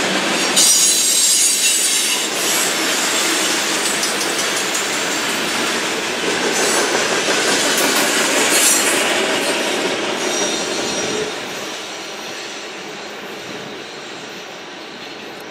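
Railroad cars rolling past, with wheels clacking and squealing on the rails. The sound drops off about eleven seconds in as the end of the train goes by, then fades away.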